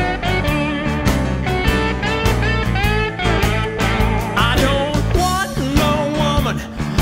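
Rock background music with electric guitar, bass and drums keeping a steady beat, the guitar bending notes.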